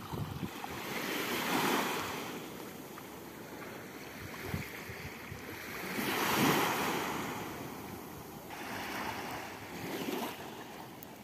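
Sea waves breaking on a beach. The surf swells and washes in three times, about four seconds apart.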